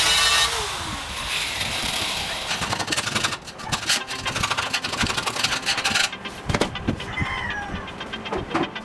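Handheld angle grinder running against the steel floor of an amplifier case, switched off about half a second in and winding down with a falling pitch. Then scraping, knocking and rubbing as the sheet-steel case is worked over by hand with a tool.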